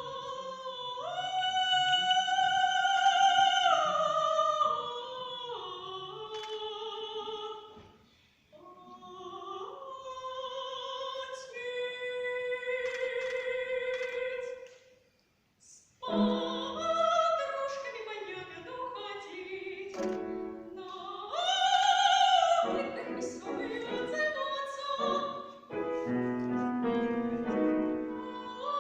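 A soprano singing classical solo repertoire with piano accompaniment. She sustains long notes with vibrato, breaking briefly about halfway through.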